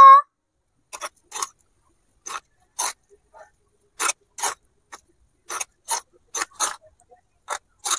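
A small metal spoon scraping and knocking against a miniature clay pot while instant noodles are stirred together with masala and salt. It comes in short, irregular strokes, about two a second.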